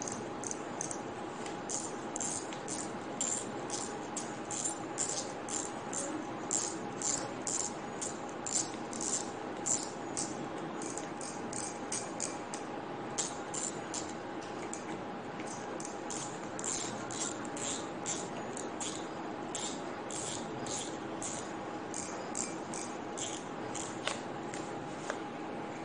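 Shimano Ultegra 4000XGFC spinning reel being worked by hand, giving a run of light, high ticks about two or three a second that grow sparser in the second half.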